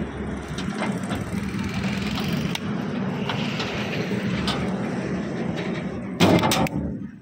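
A motor vehicle engine running steadily, with a brief loud clatter about six seconds in.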